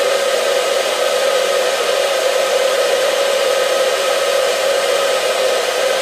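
Hair dryer running steadily with its heater on: an even blowing rush with a constant motor tone.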